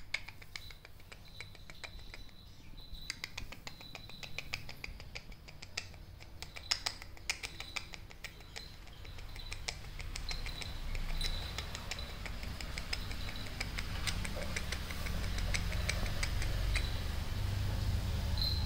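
Plastic snack packet crinkling and crackling in a dog's mouth as it carries and chews it, in quick, irregular clicks that go on almost throughout.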